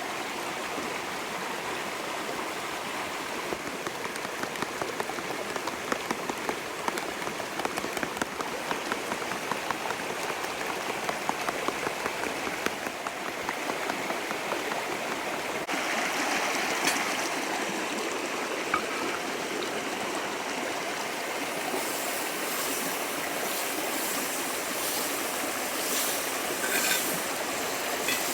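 A creek running steadily, with scattered small crackles and clicks over the rushing water. The sound changes abruptly a little past halfway.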